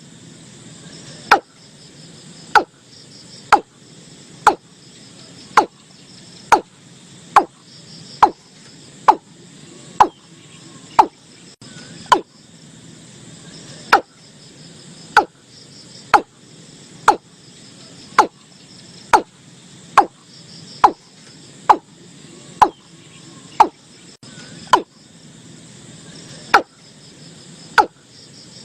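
Watercock calling: a long series of loud, short, sharp notes, each quickly falling in pitch, repeated about once a second with a few short gaps. Crickets trill steadily behind it.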